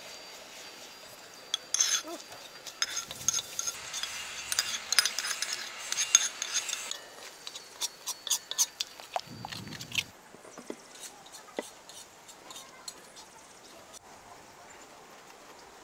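Tomato paste sizzling in hot oil in a large wok while a metal spoon stirs it, scraping and clicking against the pan; the sizzle dies down after about seven seconds, leaving spoon taps. After about ten seconds, quieter scraping of cheese on a metal box grater.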